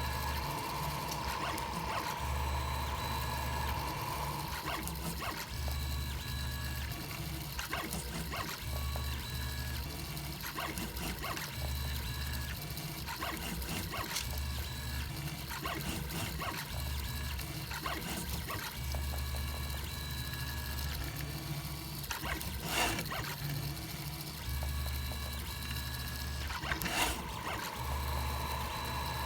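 3D printer's stepper motors driving the print head and bed through a print: a hum and whine that changes pitch and starts and stops every second or two as each move is made. Two sharp clicks come in the last third.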